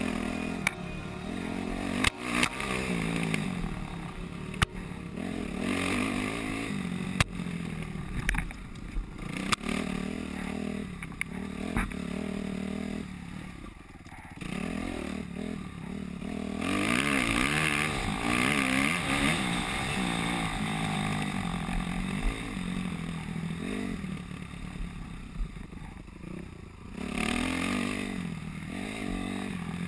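Kawasaki dirt bike engine revving up and easing off again and again as it is ridden hard along a rough trail, with sharp knocks and clatter from the bike over bumps.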